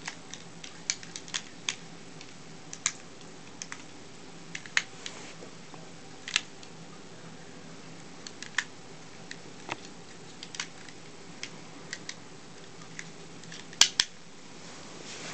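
Plastic parts of a Bandai Dino Megazord toy's saber-toothed tiger Zord clicking and snapping as they are folded by hand: scattered sharp clicks at irregular intervals, the loudest a double click near the end.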